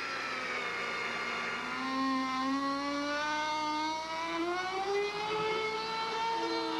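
Electric laminate trimmer (small router) running as it trims the edge of the plywood deck trim. Its motor whine sags and then climbs in pitch as the cutting load changes.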